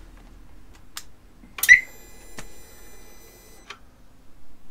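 Harley-Davidson Sport Glide's electrics coming on at switch-on: a sharp click, then a steady high-pitched tone for about two seconds that stops with another click. It shows the reconnected battery circuit is working.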